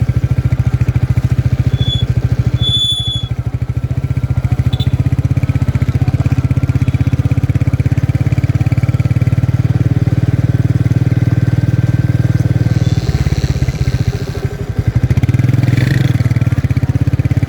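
Royal Enfield 350 single-cylinder four-stroke engine running with a steady, even thump, which the owner calls a bad sound. Brief high squeaks come about two to three seconds in, and the engine sound dips and picks up again near the end.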